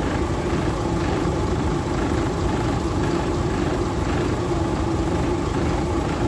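Diesel train engine idling steadily, a low rumble with a steady hum.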